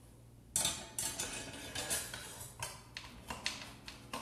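Metal clinks and scrapes from fitting a saw blade onto the spindle of a Bosch GKS 140 circular saw: irregular sharp knocks and rattles starting about half a second in.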